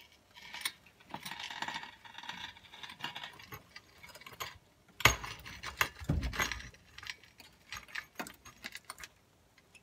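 Metal hardware and tools clinking and rattling, then two heavy clunks about five and six seconds in, followed by a few scattered clicks.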